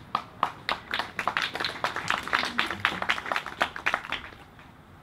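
Small audience clapping, thinning out and dying away after about four seconds.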